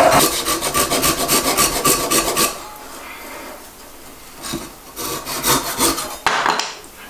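Japanese double-edged ryoba saw cutting across the grain of a wooden spoon blank in quick, even strokes. The strokes pause briefly, then start again, and a short louder knock comes near the end.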